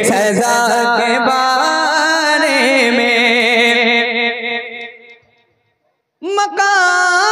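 Man singing a naat unaccompanied, drawing out a long note with wavering ornaments that fades away about five seconds in. After about a second of silence he starts singing again on a new held note.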